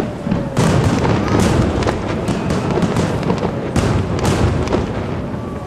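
Aerial firework shells bursting in quick succession: a dense run of sharp bangs, about a dozen, with crackling between them, easing off slightly near the end.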